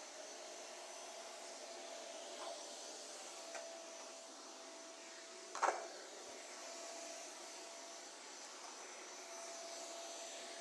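Imitation vacuum-cleaner sound made in a music tracker: a steady hiss with a faint steady tone under it. A few sharp clicks cut across it, the loudest about halfway through.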